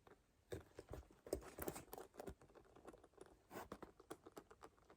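Faint, irregular light clicks and rustles from a black caviar-leather handbag being handled.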